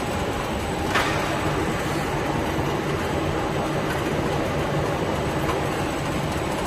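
Powered roller conveyor running under a loaded pallet of cartons: a steady mechanical rumble with a low hum, and a single click about a second in.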